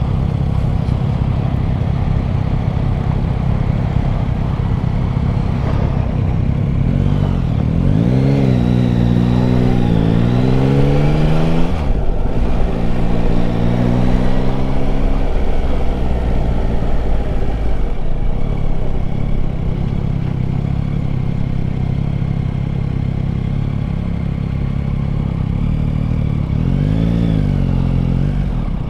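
Yamaha Tracer 9 GT's 890 cc three-cylinder engine riding along, its revs rising and falling several times over a steady rushing noise, with a brief break in the sound about twelve seconds in.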